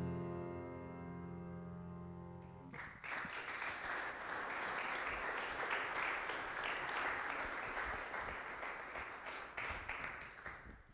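The grand piano's final chord of a song holds and then stops about three seconds in, and the audience breaks into applause, which carries on for several seconds and dies away near the end.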